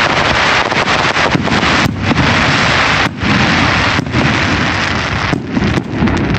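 Fireworks going off overhead: a loud, continuous crackle and rumble of bursting shells, briefly dipping a few times.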